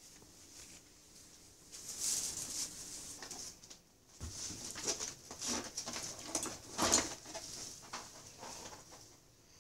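Cables being rummaged through in a wooden drawer: rustling and clinking, with a few sharp knocks against the drawer through the middle.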